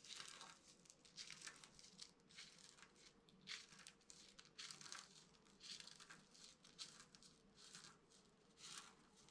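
Dry soap being crushed, giving a string of faint, short crunches and crumbles about one or two a second.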